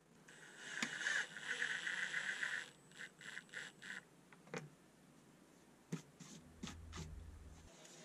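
Milwaukee cordless driver running for about two and a half seconds, driving a screw through a stainless steel exhaust port's flange into the wall siding. Four short trigger bursts follow to snug it down, then a few light clicks and knocks.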